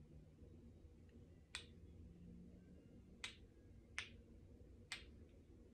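Four short, sharp clicks over quiet room tone, the first about a second and a half in and the rest roughly a second apart.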